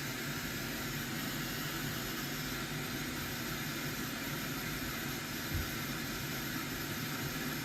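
Steady background hiss with a faint low hum under it, and one soft low thump about five and a half seconds in.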